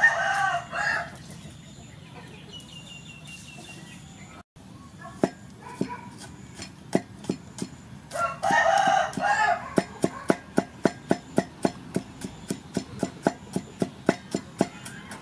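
A rooster crowing at the start and again about eight seconds in. Over it, a cleaver chops garlic on a wooden chopping block: a few separate knocks at first, then a steady run of about three strokes a second.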